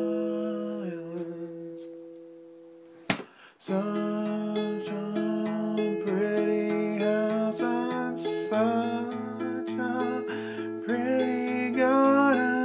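Acoustic guitar chord ringing and fading away, a short sharp knock about three seconds in, then the acoustic guitar plays on with a man singing over it and a low bass note repeating through the second half.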